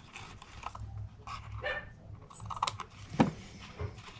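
A dog barks once, short and sharp, about three seconds in, among soft, brief handling noises.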